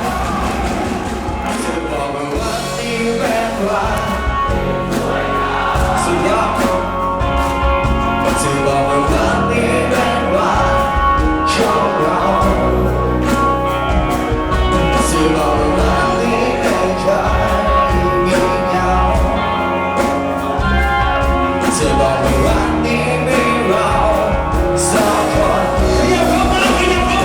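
A band playing a song live with a singer, over a steady beat and bass.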